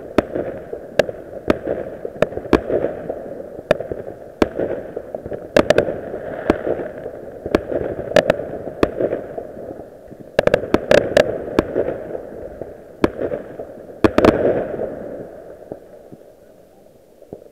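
Aerial fireworks going off: a steady run of sharp bangs and pops with crackling between them, thickest about two-thirds of the way through, then dying away near the end.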